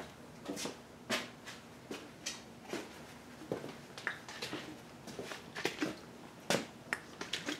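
Paper towel being handled and folded: a string of short, irregular rustles and clicks, the loudest about six and a half seconds in.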